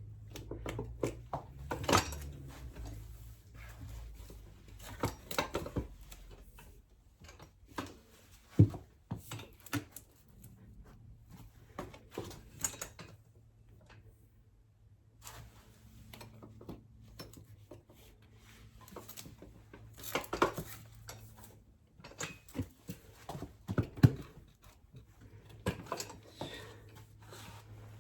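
Scattered clicks and knocks of tools and metal parts being handled, some sharp and loud, over a faint low steady hum.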